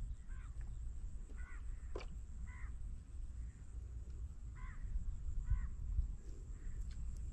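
A crow cawing: about six short, harsh caws, irregularly spaced, over a low steady rumble, with one sharp click about two seconds in.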